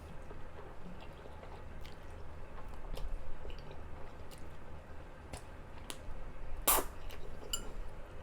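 Close-up mouth sounds of someone chewing spicy Korean noodles, with scattered wet smacking clicks. One louder, sharper mouth sound comes near the end.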